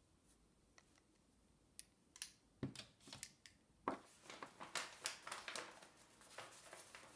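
A sheet of paper being unfolded and handled: faint crisp rustling and crinkling, starting about four seconds in, after a few light clicks and taps.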